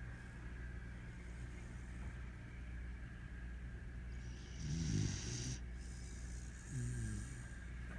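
A sleeping dog snoring: two snores about two seconds apart, each a low pitched breath with a hiss, over a steady low background hum.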